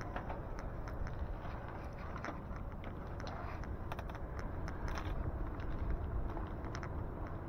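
Riding noise from an e-bike: a steady low rumble of wind and road with many scattered sharp ticks and clicks.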